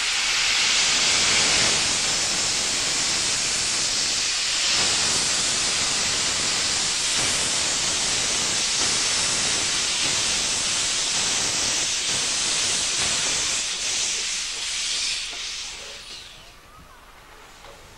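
Steam locomotive 23 105 venting steam from low at the front, around its cylinders, in a loud, steady hiss. The hiss dies away about sixteen seconds in.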